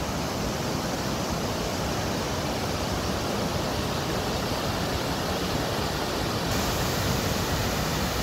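A large waterfall heard close by, its water falling hard down the rock face: a steady, dense rush with no let-up.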